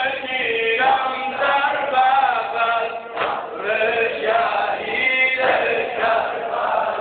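Male voices chanting together in long held notes that bend up and down in pitch.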